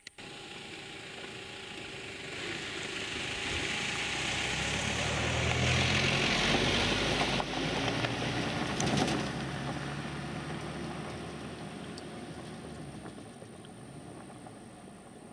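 A passing motor engine, growing steadily louder for several seconds and then fading away.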